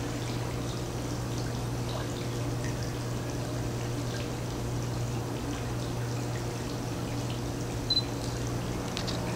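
Steady low hum under a constant hiss, with a short high chirp about eight seconds in.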